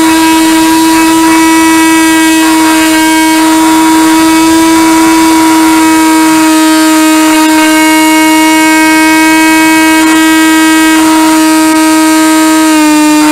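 Radio-controlled model airplane's motor and propeller, heard from a camera mounted on the plane: a loud, steady whine that drops slightly in pitch near the end.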